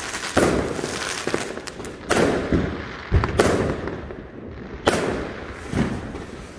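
Aerial fireworks going off: about four loud bangs, one to two seconds apart, each trailing away into crackle.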